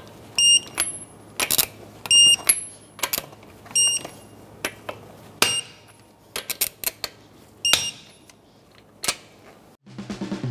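Torque wrench on the wheel's lug nuts, set to 76 foot-pounds: short high beeps about every two seconds with sharp clicks between them, as each nut is brought up to torque.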